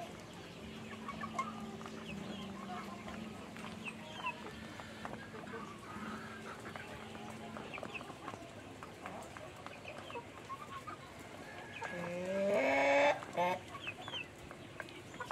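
A large flock of chickens clucking and calling. About twelve seconds in, a rooster crows loudly in one rising call of about a second.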